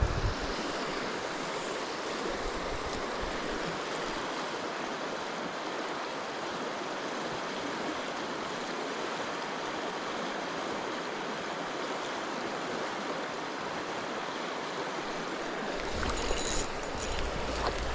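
River water rushing steadily. A low rumble and light clicks come in near the end.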